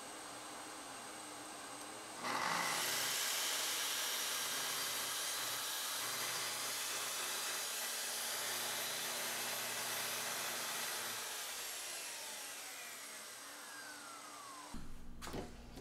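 A dust extractor runs with a steady hum. About two seconds in, a Festool plunge track saw starts up and cuts through half-inch PVC trim board along its guide rail. After the cut the blade winds down with a steadily falling whine, and a short knock comes near the end.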